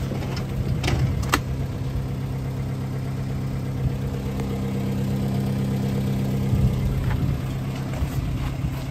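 Linde H16T forklift's LPG engine idling steadily, with a couple of light clicks about a second in.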